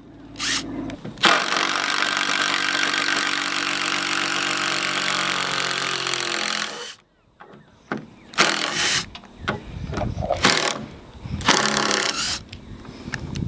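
Cordless power driver sinking a long screw into a timber batten, running steadily for about five and a half seconds, then several shorter bursts.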